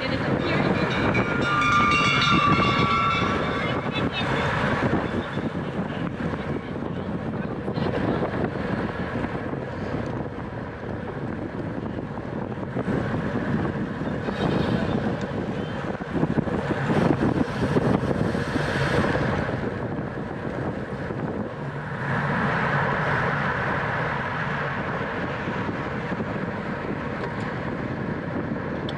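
Wind rushing over the microphone of a bicycle racing at speed, with steady road and riding noise. A short wavering high-pitched sound comes in the first few seconds.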